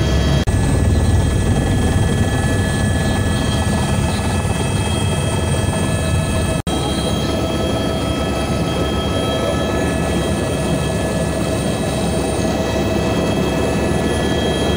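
Helicopter in flight heard from inside the cabin: a loud, steady low rotor drone with a high turbine whine over it. The sound drops out for an instant just over six seconds in.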